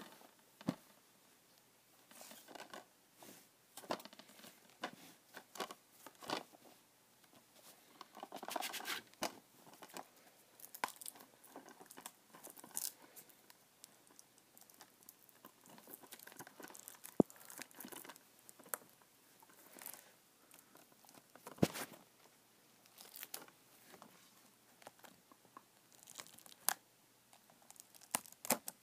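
Plastic shrink-wrap being torn and crinkled off a Blu-ray case, with scattered rustling and handling of the plastic case and a few sharp clicks, the sharpest about two-thirds of the way through.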